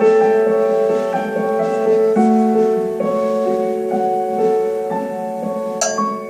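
Piano playing held notes and chords in an instrumental passage without singing. Near the end a sharp percussive stroke comes in.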